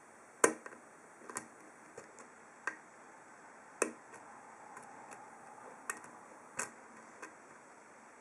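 Sharp metallic clicks from a hook pick working the pin stacks of an ASSA Ruko 2 padlock's 7-pin core under tension, with the core held in a false set. About eight clicks come at uneven intervals, the first, about half a second in, the loudest.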